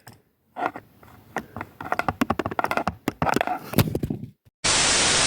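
Handling noise: a string of taps, knocks and clicks as plastic Nerf guns and a phone are picked up and set down. Near the end comes about a second of loud, steady hiss that starts and stops abruptly.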